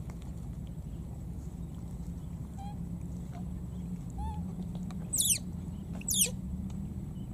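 Baby macaque crying: a few faint whimpers, then two loud, shrill squeals about a second apart near the end, each falling steeply in pitch.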